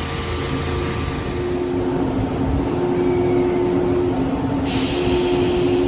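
Izukyu 2100 series resistance-control electric train standing in the platform, its onboard equipment giving a steady noisy hum with low tones that come and go. A hiss returns abruptly near the end.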